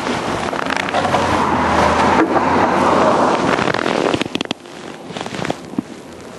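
Shovel scraping and crunching through concrete mix, a long rough scrape followed by a few sharp knocks about four seconds in.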